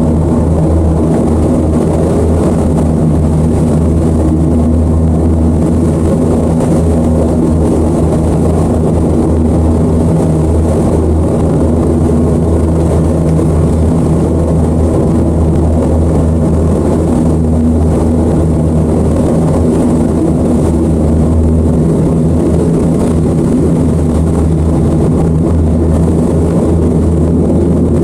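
Twin outboard motors running steadily under load, towing a boat on a taut line. A constant deep engine drone that holds the same pitch throughout.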